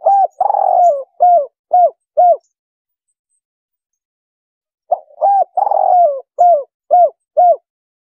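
Spotted dove (tekukur) cooing, the 'kuk 3' call type prized as a lure for trapping doves: two identical phrases, one at the start and one about five seconds in. Each is a short coo, a longer falling coo, then three short clipped notes.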